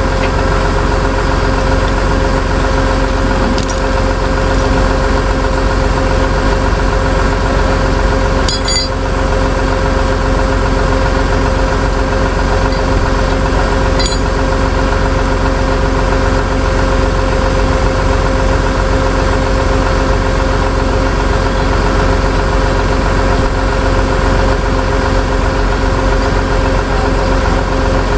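Tow truck engine running steadily with an even drone. Two brief clicks come through it.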